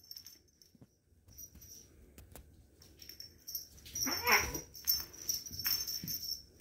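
A pet cat gives one brief, wavering cry about four seconds in, among a few soft clicks and knocks from the cats playing.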